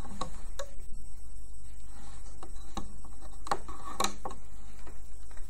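Irregular light plastic clicks and taps as rubber loom bands are stretched onto the plastic pegs of a loom-band loom, the sharpest a little after three and about four seconds in, over a steady low hum.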